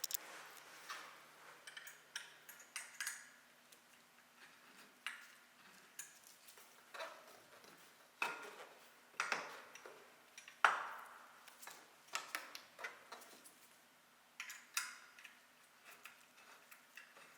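Faint, irregular metallic clicks and light knocks of roof-rack crossbar parts and clamp hardware being set onto the roof rails and adjusted, with one sharper knock about two thirds of the way through.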